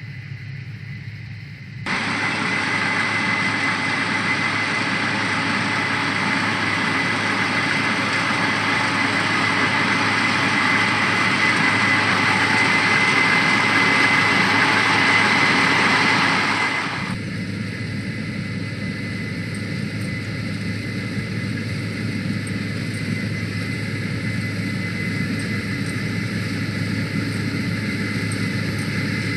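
Case IH 8120 Axial-Flow combine harvester running with a steady low engine hum. From about two seconds in until about seventeen seconds in it is much louder, with a steady high whine over the machinery noise; then it drops back to the steadier hum.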